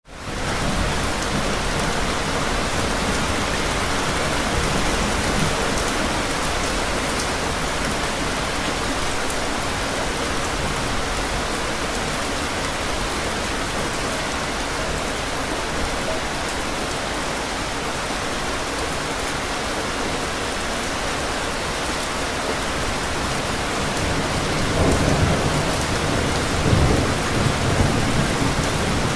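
Steady rainfall, with rumbles of thunder near the end.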